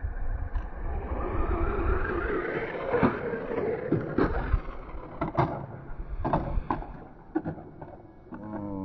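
Brushless RC drift car (UDIRC 1602 Pro) driving on concrete: a motor whine that rises over the first few seconds and fades toward the end, over tyre noise, with several sharp clicks in the middle.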